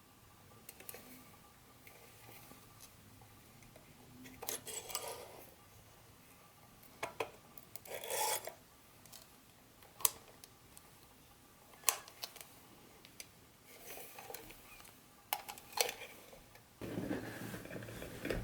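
Hands handling pieces and packaging of a model train set: scattered rubbing and scraping with several sharp clicks, and a longer rub near the end.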